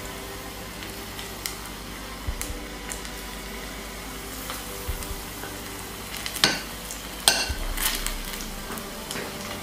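A metal fork stirring batter in a bowl, clinking and scraping against its sides several times, louder a little past halfway, over the steady sizzle of oil frying in a pan on a portable gas stove.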